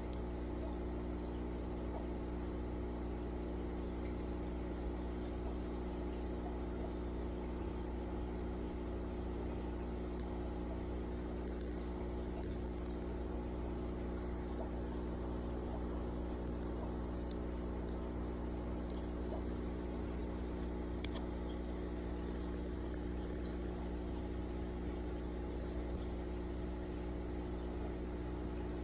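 Aquarium air pump humming steadily, with a light hiss of bubbles from the air stone in the tank.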